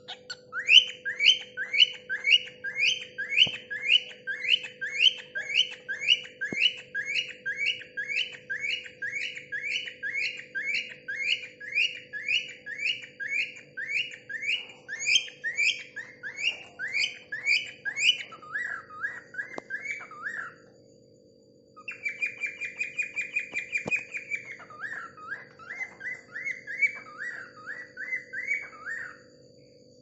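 Cockatiel calling: a long run of quick rising whistled chirps, about two a second. They give way to lower wavering notes, and after a brief pause come one held steady whistle and more wavering notes.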